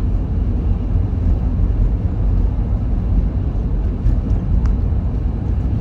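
Steady low rumble of a car driving on a snowy highway, heard from inside the cabin: tyre and engine noise with no change in speed.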